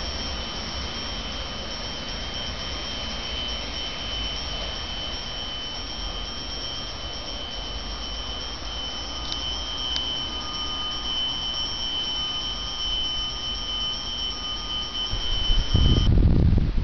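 Regional train pulling away from a station and receding, a low rumble under a steady high-pitched whine. Near the end the whine cuts off and loud wind gusts buffet the microphone.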